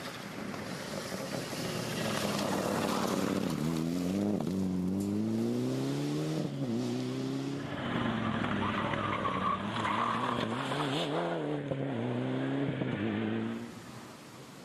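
Mitsubishi Lancer Evolution rally car's turbocharged four-cylinder engine at full throttle, pitch climbing through the gears with sharp drops at upshifts about four and six and a half seconds in. It then holds high revs that rise and dip as the car passes, and cuts off abruptly near the end.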